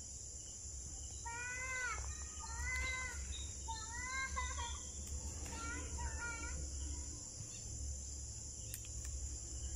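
Steady high-pitched chorus of crickets, with four short pitched calls, each rising then falling, between about one and seven seconds in.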